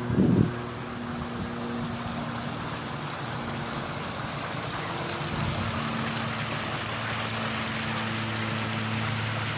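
Water running and splashing through a rock-lined pond stream, a steady hiss that grows brighter toward the end, over a low steady hum. A brief low thump right at the start.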